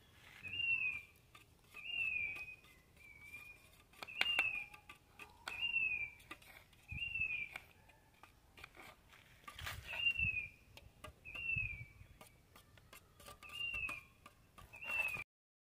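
A bird calling a short, clear down-slurred whistle over and over, about once a second, with sharp clicks of a metal spoon beating eggs in a steel bowl; the sound cuts off abruptly near the end.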